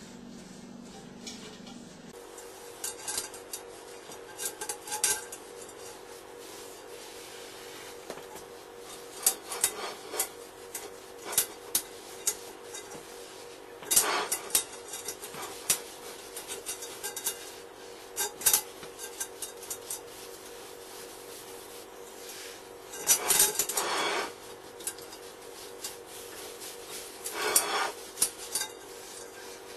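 Cast-iron Dutch oven and lid being handled while oil is wiped on with a paper towel: scattered clinks and knocks of the pot and lid, with a few brief rubbing scrapes.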